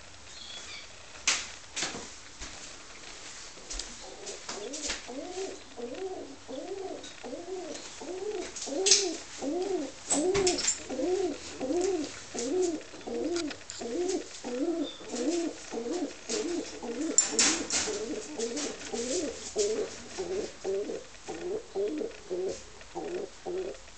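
Budapest tumbler pigeon cooing over and over, each coo a low swelling rise and fall, about two a second; courtship cooing from a flirting bird. A few sharp clicks are heard, about a second in and again twice later.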